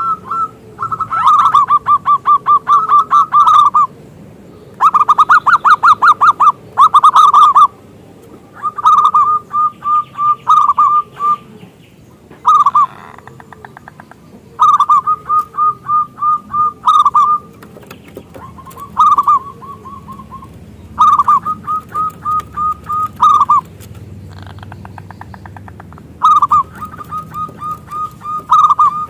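Zebra dove (perkutut) cooing loudly in repeated phrases, each a quick run of short pulsed notes ending in a longer note, with brief pauses between phrases.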